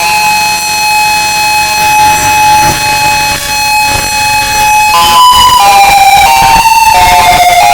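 Federal Signal EOWS-612 electronic warning siren holding one steady tone for about five seconds, then switching to tones that step up and down in pitch.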